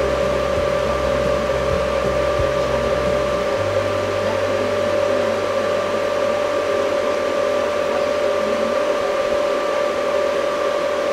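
Steady whirring hum of an electric fan or blower on the bench, with a constant whine over it; the low rumble underneath drops away about three and a half seconds in.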